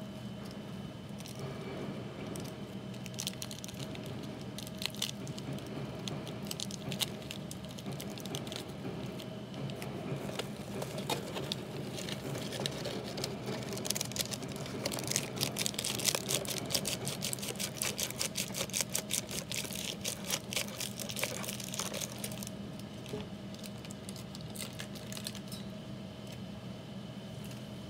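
Plastic seasoning sachets for an instant bowl noodle crinkling and tearing as they are opened and emptied into the bowl, with dry bits pattering in; the crackling is busiest in the second half. A steady low hum runs underneath.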